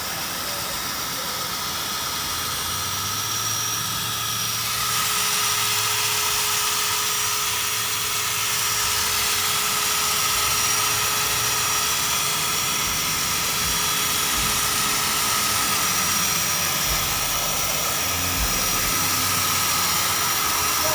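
Power drill running, spinning an abrasive pad against a plastic headlight lens to cut away the yellowed haze. It is a steady motor whine with a rough hiss, and it gets louder about four seconds in.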